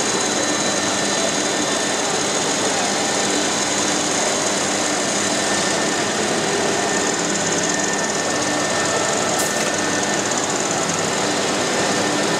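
ASTechnology VTS 04 CNC machine running steadily: a dense, even mechanical noise with a constant whine on top.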